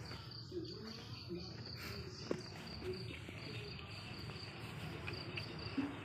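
A cricket chirping steadily in a fast, even pulse, with a few faint knocks as plastic toys are handled.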